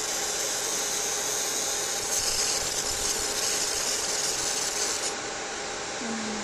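VML20FP fiber laser marking machine running as it marks an aluminium plate: a steady fan-like noise with a high hiss over it. The hiss stops suddenly about five seconds in as the marking finishes, and the machine noise drops a little.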